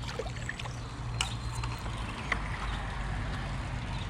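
Steady rush of shallow river water, with two sharp knocks, one about a second in and one past two seconds.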